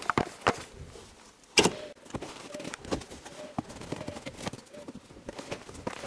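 Handling noises of a car floor mat being pulled out of the front footwell: scattered knocks and rustles, with one louder knock about a second and a half in.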